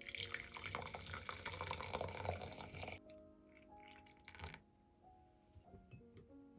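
Hot water poured from a kettle onto loose tea leaves in a steel mesh infuser set in a porcelain teapot, splashing steadily and stopping abruptly about three seconds in. A single light knock comes about a second and a half later, over soft background music.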